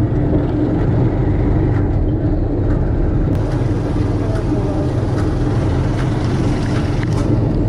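Motorcycle engine of a Philippine tricycle (motorcycle with sidecar) running steadily, heard from inside the sidecar, with a few light clicks from handling close to the microphone.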